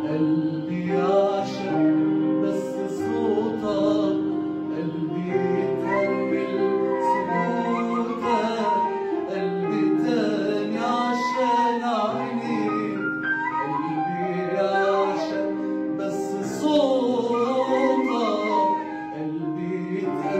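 A man sings an Arabic tarab song over an instrumental accompaniment of held chords.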